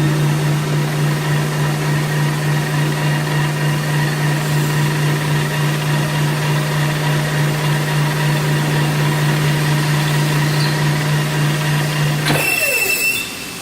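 A machine's steady electric hum with a strong low tone. About twelve seconds in it cuts off with a short falling whine as it spins down, followed by a brief high-pitched hiss.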